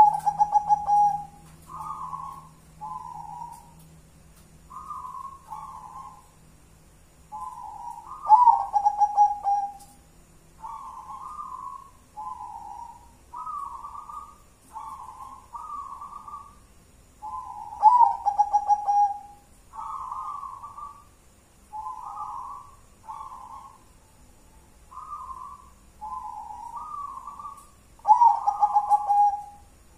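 Zebra dove (perkutut) cooing in a steady series of soft coo phrases about once a second. Roughly every ten seconds a louder full song phrase comes in, with a quick stuttering start and a long, lower closing note.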